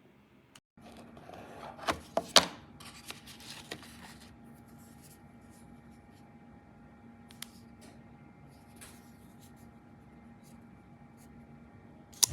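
A folding pocket knife being handled: rubbing and a few sharp clicks, the loudest about two seconds in, then a steady low hum with a few faint ticks and another sharp click near the end.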